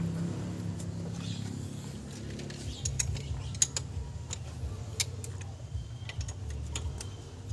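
Scattered light metallic clicks and taps from hands handling the exposed rocker-arm valve gear and carburetor of a Nissan A12 engine that is not running. The clicks come more often from about three seconds in, over a low steady hum.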